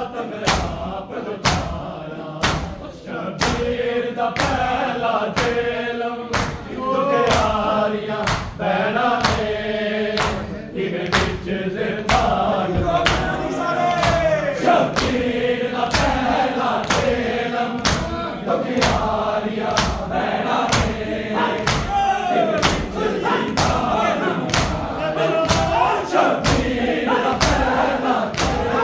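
A noha, a Shia lament, chanted by a group of voices over the steady beat of matam: mourners striking their chests with open hands in unison, one stroke a little under every second.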